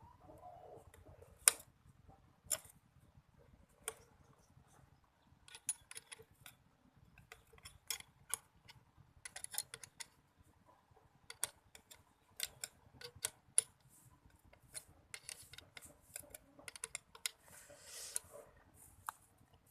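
Irregular clicks and taps of small hard parts being handled and fitted together by hand, some in quick clusters, with a brief scrape near the end.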